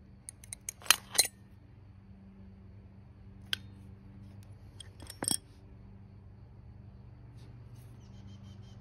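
Sharp metallic clicks and knocks of hand tools and motorcycle parts being handled: a cluster about a second in, one near the middle and a pair a little later, over a steady low hum. A rapid, rhythmic high chirping starts near the end.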